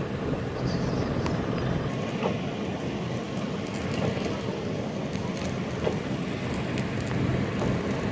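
Sealcoat spray rig at work: a steady hiss and rumble as asphalt sealer is sprayed through a hose-fed wand, with the rig's pump running.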